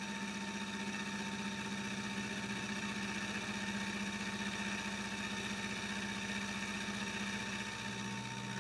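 Milling machine spindle running steadily, an end mill cutting along the edge of a scrap block held in the vise to square it up. A steady motor hum with a thin whine above it.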